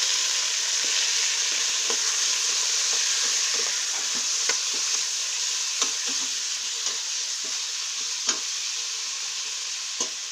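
Pork and chicken frying in hot annatto oil in a pot, with a steady sizzle that eases slowly. A stirring utensil clicks against the pot every second or so.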